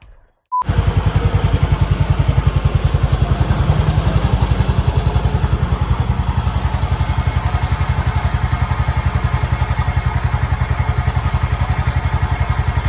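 Motor scooter engine idling steadily, with a fast, even pulse.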